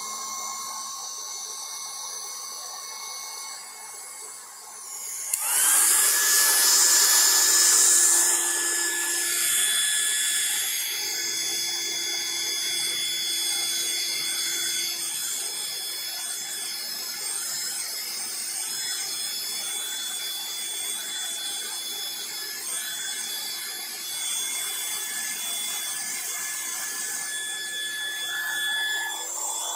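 LDK 1200W electric heat gun blowing hot air, its fan motor running with a steady whine. About five seconds in it gets much louder, with a higher whine that rises quickly and then holds steady.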